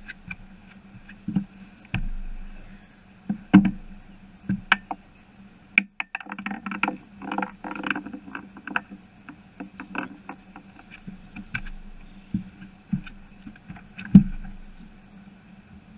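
Knocks and thumps of someone moving about and handling gear on a bass boat, with a run of rattling clatter near the middle and the loudest thump near the end, over a faint steady hum.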